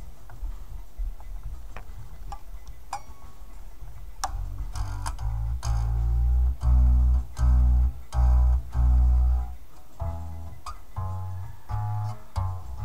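Electric guitar with a Floyd Rose tremolo, played through a high-gain Engl Fireball amp model on a Line 6 POD HD500. A few sparse picked notes at first, then heavy low chugged chords with short stops from about halfway, and lighter single-note runs near the end.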